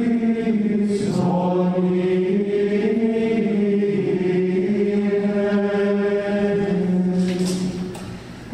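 Male voices chanting in unison, with long held notes and a short drop in level near the end.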